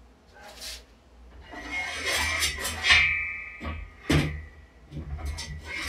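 Heavy steel lifting chains being handled at the power rack: metal rattling and clinking, with a couple of sharp clanks and a ringing tone from the metal.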